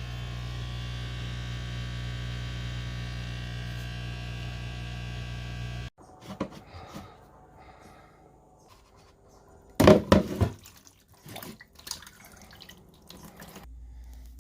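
Bosch 500 Series washer's drain pump humming loudly and steadily while trying to drain, then cutting off suddenly about six seconds in. The hum is the fault that stopped the washer draining properly. There is a brief loud noise about ten seconds in, and a fainter low hum starts again near the end.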